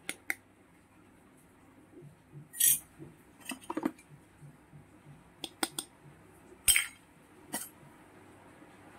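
Miniature stainless steel toy utensils clinking against each other as they are handled and set down: a scattering of separate light metallic clinks, the loudest about two and a half and six and a half seconds in.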